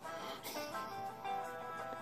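Background music: an instrumental melody of plucked notes.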